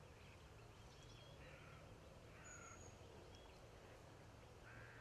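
Near silence, with a few faint, brief bird calls scattered through it, including one thin high whistle near the middle.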